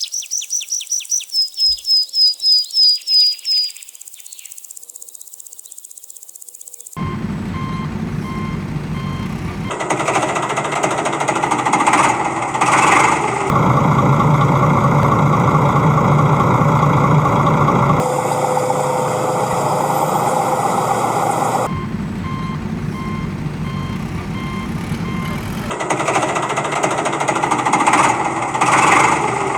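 A quick run of high-pitched electronic beeps in the first few seconds, then heavy machinery running with a steady rattle, its tone shifting abruptly every few seconds, with an intermittent beep like a reversing alarm in parts.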